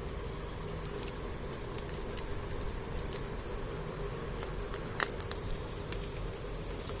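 Plastic wrapping being peeled and handled off a phone box: scattered light crackles and clicks, with one sharp click about five seconds in, over a steady low hum.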